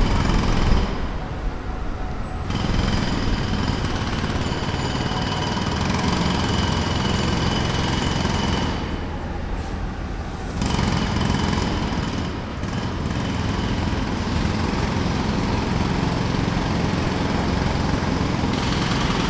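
Jackhammer hammering in rapid, continuous strikes, stopping briefly twice while a steady low rumble carries on underneath.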